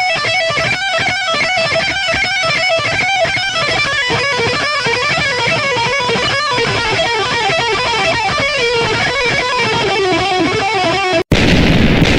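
Electric guitar played fast, a lead of quickly changing notes with runs that fall in pitch. About eleven seconds in it cuts off abruptly and a loud, steady rushing noise takes over.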